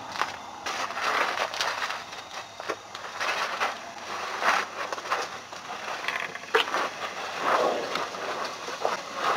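Elephant feeding in a tree, pulling and stripping leafy branches with its trunk: irregular rustling and crackling of leaves and twigs, with a few sharp snaps of breaking wood.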